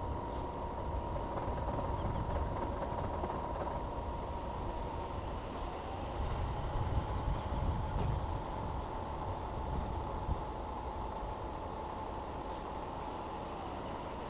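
Jet airliner engines running at low power, a steady high whine over a low rumble. The whine drops slightly in pitch about five and a half seconds in, and the rumble swells around the middle.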